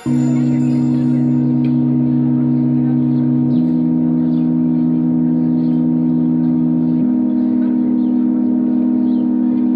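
Ambient background music: a sustained low drone chord whose lowest note steps up twice, at roughly three-and-a-half-second intervals.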